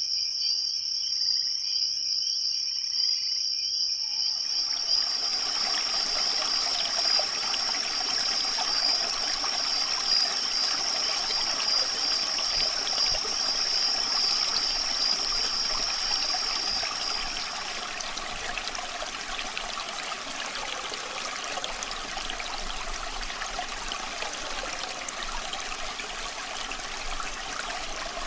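Crickets trilling on one steady high note, joined abruptly about four seconds in by a small stream running and trickling. The cricket trill stops about two-thirds of the way through, leaving only the running water.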